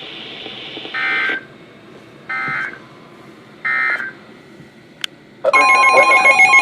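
Emergency Alert System end-of-message code: three short warbling digital data bursts about 1.3 s apart, followed by a click. About five and a half seconds in, a loud, steady electronic multi-tone signal starts, the opening of the next alert.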